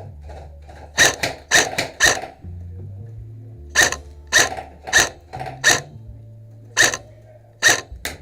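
Loud airsoft gun shots that sound like a real gun: about a dozen single sharp cracks in uneven groups, over background music.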